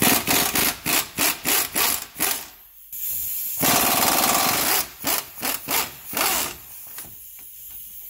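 Pneumatic wrench with a 19 mm flex socket loosening the brake caliper bolts. It runs in short trigger bursts about three times a second, then in one longer steady run around the middle, then a few more bursts before it trails off.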